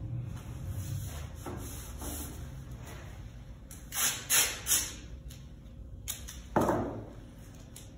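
Masking tape pulled off the roll in three quick tearing strips, then a single sharp knock a couple of seconds later.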